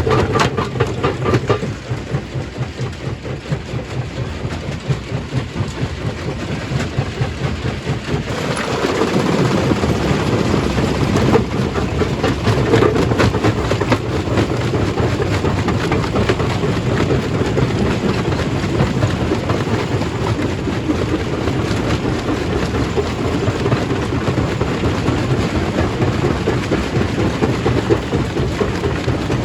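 Stone-crushing machine running with a continuous, rapid rattling rumble of rock being worked. About eight seconds in it grows louder and fuller, then keeps up steadily.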